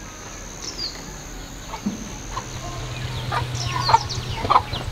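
Chickens clucking, short calls coming more often in the second half, over a low steady hum that starts about two seconds in.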